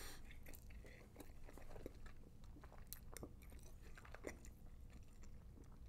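Faint chewing of a mouthful of sausage McMuffin, with scattered small crunches and wet mouth clicks from the English muffin, which is burnt.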